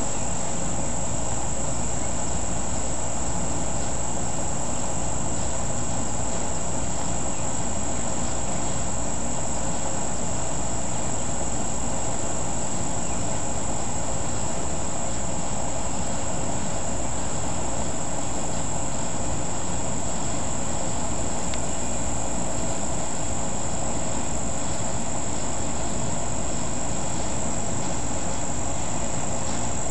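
Steady, high-pitched chorus of insects that does not let up, over constant background noise.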